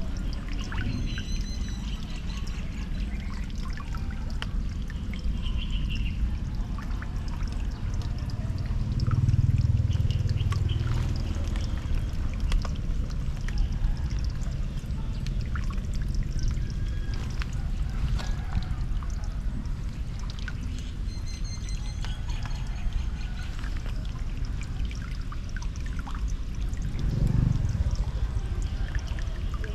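Floodwater pouring and rushing steadily into a culvert drain, a low rush that swells louder about a third of the way in and again near the end.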